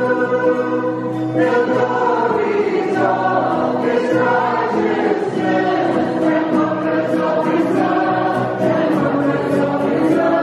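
Mixed choir of men and women singing a Christmas carol together, accompanied by keyboard and a small band of guitar, violin and flute.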